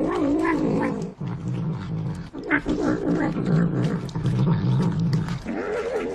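Domestic tabby cat making low, wavering growling sounds while eating wet food, rising to higher-pitched vocal sounds near the end.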